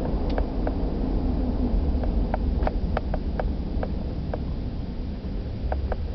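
Low, steady cabin rumble of a car's engine and road noise while driving, easing off slightly near the end, with a scattering of light ticks and clicks at uneven intervals.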